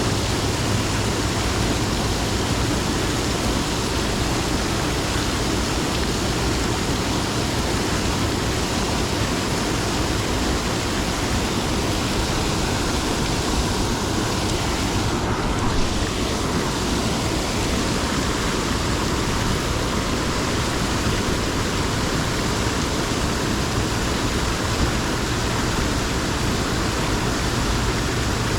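Steady rushing noise of moving water, even and unbroken, with a small bump about halfway through.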